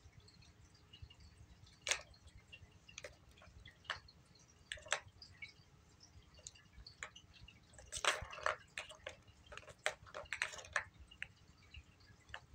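Plastic balls in a Tower of Tracks cat toy clicking and clattering in their tracks as a kitten bats at them: scattered single clicks, then a busy flurry of clatter from about eight seconds in.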